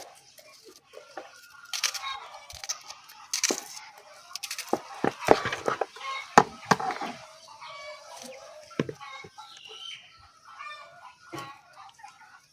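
Chickens clucking and calling. A run of sharp clicks and knocks is packed into the middle and is the loudest sound.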